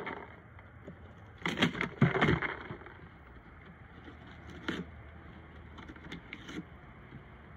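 A husky ripping and crinkling a cardboard box with its nose and paw to dig out kibble hidden inside: a burst of tearing cardboard about a second and a half in, then a few scattered crackles.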